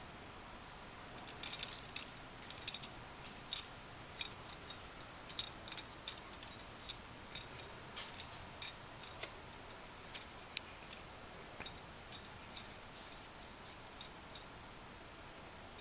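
Faint, irregular clicks and light scratches, a few a second, of a young kitten's claws catching on sisal and woven matting, with one sharper click about two-thirds of the way through.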